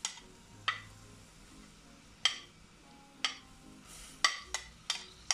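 A metal spoon clinking against a plate and the rim of an aluminium saucepan as chopped onions are scraped into the pan: about eight sharp, unevenly spaced clicks.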